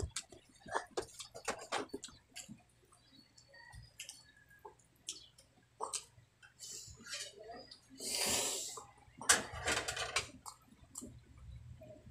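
Close-up wet eating sounds of a person chewing sticky braised pork leg skin and meat: many short smacks and clicks of mouth and fingers. Two longer, louder wet rushes come about eight and nine and a half seconds in.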